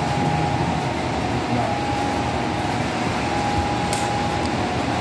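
HO scale model freight cars rolling steadily along the track, a continuous rumble with a steady hum underneath and a light click about four seconds in.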